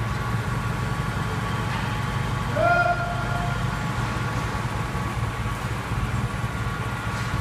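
Steady low hum of a lathe running, with one short squeal, held at one pitch, about two and a half seconds in.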